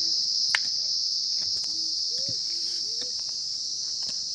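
Steady, high-pitched chorus of insects, such as crickets, shrilling continuously, with a few faint distant children's voices and a single sharp click about half a second in.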